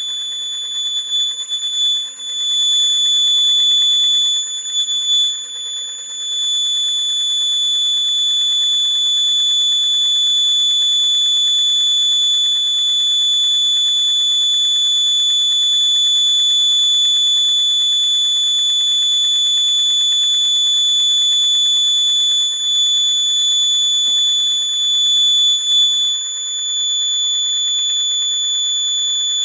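Electronic buzzer sounding one continuous high-pitched tone, steady in pitch, its loudness wavering briefly a few times.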